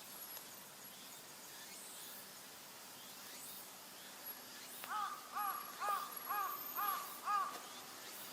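A crow cawing six times in quick succession, about two calls a second, over a faint steady outdoor hiss.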